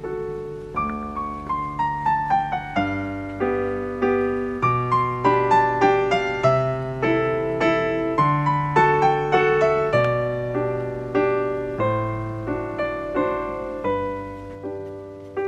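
Background piano music: a gentle melody of single notes with descending runs over held bass notes.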